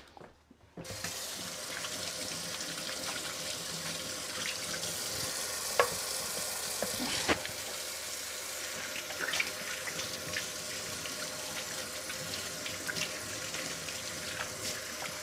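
Kitchen tap running as hands are washed under it, the water coming on about a second in, with a few light knocks along the way.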